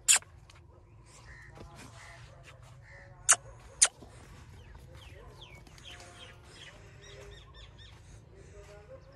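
Faint bird calls, many short chirps and glides, over a steady low outdoor rumble. Three sharp clicks stand out: one at the start and two about half a second apart a little past three seconds in.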